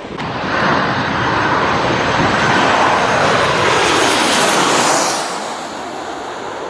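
Twin-engine jet airliner's engines at high thrust: a loud roar with a high whine, which drops off about five seconds in.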